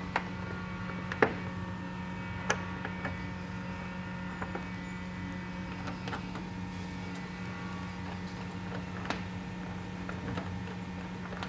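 Scattered light metal clicks and taps from an inner clamp, bolt, split washer and flat washer being fitted by hand against a pickup's bed rail, the clearest about a second in and again a second later. A steady low hum runs underneath.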